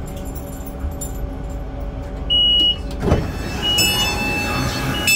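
Passenger door of a Class 458/4 electric multiple unit opening after its button is pressed. A high steady beep sounds about two seconds in, then the door mechanism works with a sudden rising sound, followed by more short beeps. The train's steady hum runs underneath.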